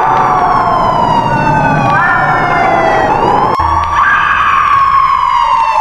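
Sirens wailing: several overlapping tones slowly sweep down in pitch. About halfway through there is an abrupt break, and a single siren climbs and then slowly falls again over a low hum.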